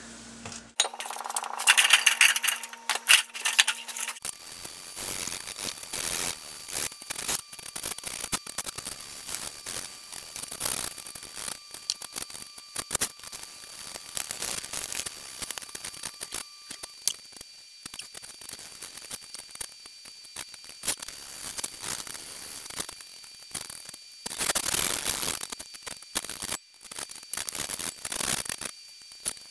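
Hand-cleaning a Vernon lathe's lead screw and bed: irregular scrubbing and scraping at caked oil and dirt, with many small clicks and knocks of the tools against the metal.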